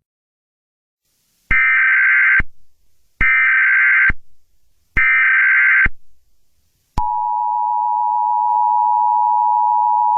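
Emergency Alert System header: three short bursts of SAME digital data tones, each just under a second. About seven seconds in, the steady two-tone EAS attention signal starts.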